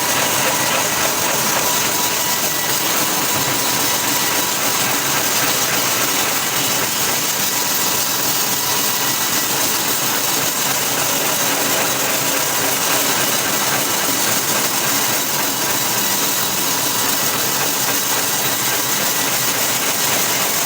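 Wood-processing machinery running steadily: a loud, even mechanical hiss that does not change.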